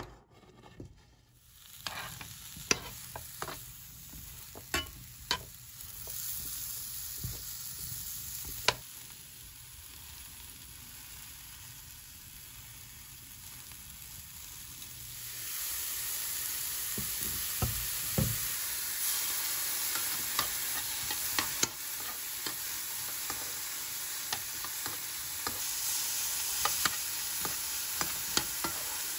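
Eggplant and king oyster mushroom pieces in a nonstick frying pan, with scattered clicks and taps. About halfway in, just after oil is poured in, a steady sizzle of frying sets in, with a spatula stirring and scraping through it.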